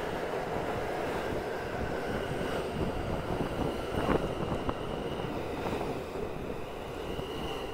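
R160B subway train running, a steady rail rumble with a single clack about four seconds in and a faint high whine in the second half.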